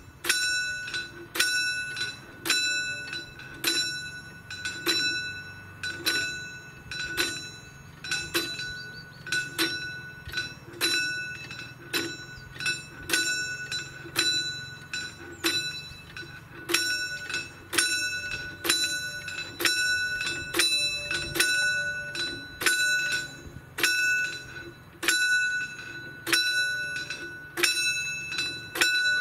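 Railway level-crossing warning bell starting up suddenly and ringing on with repeated strikes, roughly once a second, each ringing out and dying away before the next.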